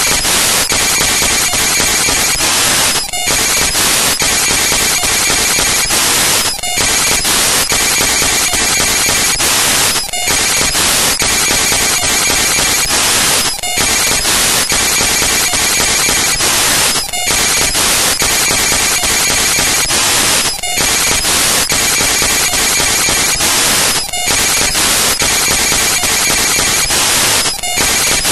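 Loud, steady static hiss, broken by a brief dropout about every three and a half seconds, like a short noise loop repeating.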